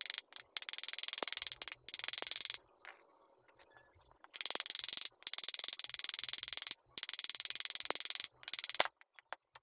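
Electric motor's rotor turned by hand against its end housing, giving a fast, high metallic rattling whir in four bursts that stops about nine seconds in. The motor's centrifugal switch is worn loose, its teeth gone.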